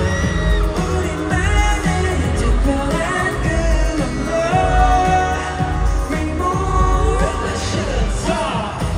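A K-pop boy group singing a pop song live over a loud backing track with a pulsing bass beat.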